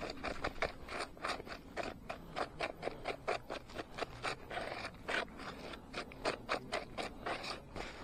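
Rapid scraping or rubbing strokes close to the microphone, about three to four a second, with a short pause a little past halfway before they start again.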